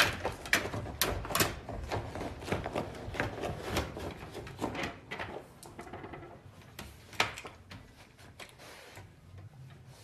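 Pet-door flap clattering in quick, irregular clicks and knocks as an animal works a floor mat through it. The knocks thin out after a sharper one about seven seconds in.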